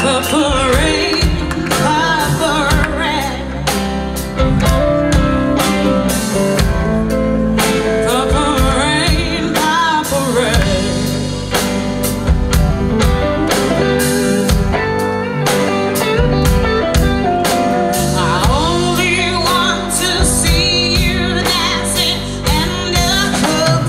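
Live rock and blues band playing with a woman singing lead: electric guitars, drum kit, congas and keyboards behind a melismatic vocal line.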